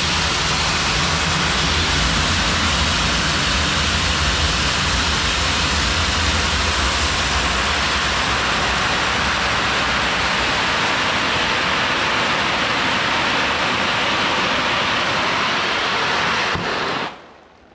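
Soybean seed pouring out of the opened bottom of a bulk seed bag in a steady, rain-like hiss that stops abruptly near the end.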